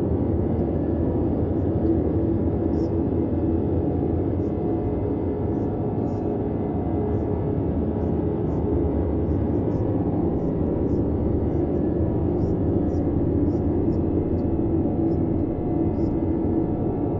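Layered, synthesized red (Brownian) noise: a steady, deep hiss weighted heavily toward the low end.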